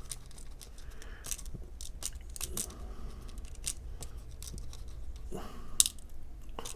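Light clicks, taps and rustles of small paper-craft pieces being handled on a tabletop, with one sharper click near the end.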